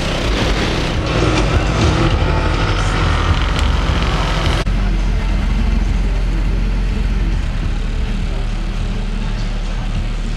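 Car engine idling with a steady low hum under general outdoor noise. About halfway through, an edit cuts away the brighter background noise, leaving mostly the low engine hum.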